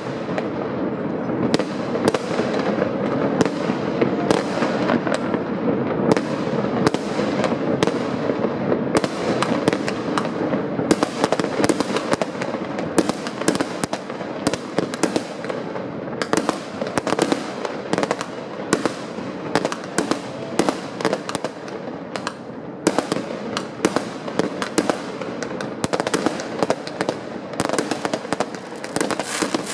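Fireworks going off all over a city: a dense, continuous barrage of overlapping bangs and pops from aerial shells and firecrackers, many each second, some close and some distant, over a constant rumbling crackle.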